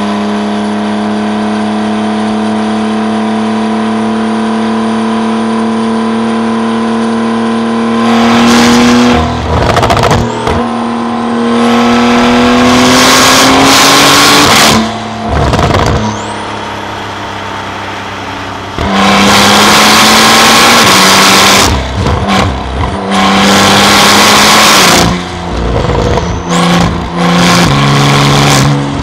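Porsche 911 Carrera (991.2) twin-turbo flat-six with a titanium exhaust, first running at a steady, even note. About eight seconds in it is pulled hard, the pitch climbing and falling back at each gear change. After a short easing-off it accelerates hard again through several gears, with uneven revving near the end.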